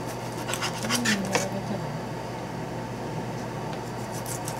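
Kitchen knife slicing raw sea bream for sashimi on a plastic cutting board: a few quick scraping cuts from about half a second to a second and a half in, and more starting near the end, over a steady background hum.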